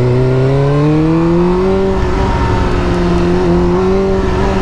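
Sport motorcycle engine running while riding. Its pitch rises over the first two seconds and then holds steady.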